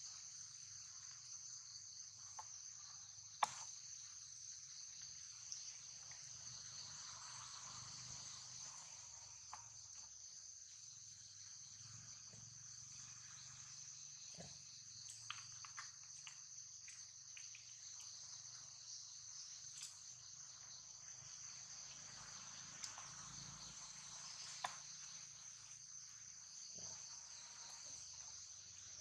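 Steady high-pitched insect chorus that drones without a break, with a few faint scattered clicks, the sharpest about three and a half seconds in.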